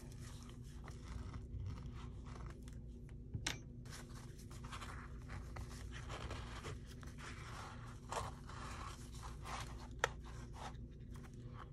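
Faint paper rustling and scraping as journal pages and signatures are handled during the binding, with two sharp clicks, about three and a half seconds in and again about ten seconds in.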